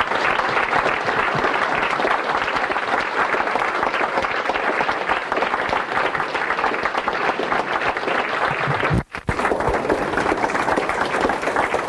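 Audience applauding steadily, a dense patter of many hands clapping, with a brief dropout in the sound about nine seconds in.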